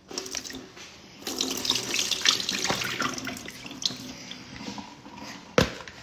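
Kitchen tap running into a plastic bowl as sausages are rinsed, the water starting about a second in, with one sharp knock near the end.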